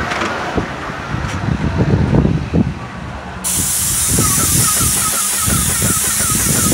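Airless paint spray gun on an extension pole cuts in abruptly about three and a half seconds in with a steady hiss as paint sprays onto the siding. Before that there is only irregular low rumbling and knocking.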